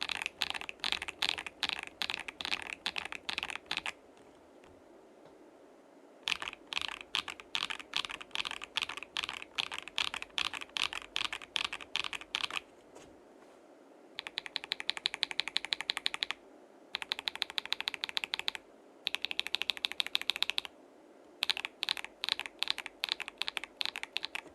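Lubed Akko CS Lavender Purple tactile switches typed on a KBD67 Lite keyboard with a polycarbonate plate, gasket-mounted and dampened: runs of clacky keystrokes with brief pauses between them, some runs fast and even like rapid repeated presses.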